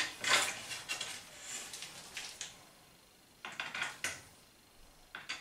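Light clicks, knocks and short scrapes of a wooden batten being handled and pressed against a wall, in two clusters with a short quiet gap between them.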